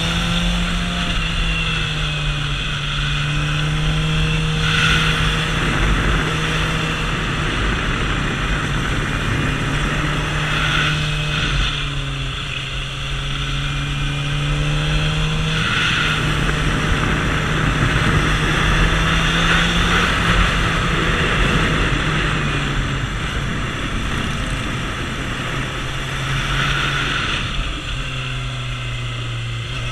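Suzuki GSX-R750's inline-four engine running at steady revs on the move, its note dropping and climbing back a few times through the curves, under a steady rush of wind noise that swells now and then.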